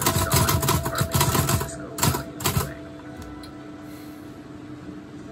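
Olivetti Lettera 25 portable typewriter being typed on: a rapid run of key and typebar clacks for about the first two and a half seconds, then the typing stops, leaving only a couple of faint clicks.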